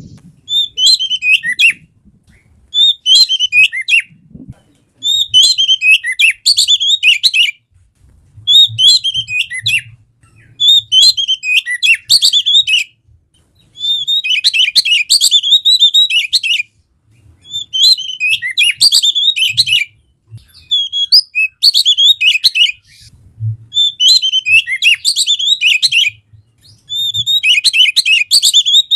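Oriental magpie-robin (kacer) singing: about a dozen loud, rapid phrases of varied whistles and chirps, each a second or two long with short pauses between them.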